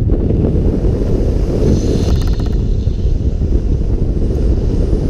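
Wind buffeting the microphone, a loud, steady low rumble with no distinct events.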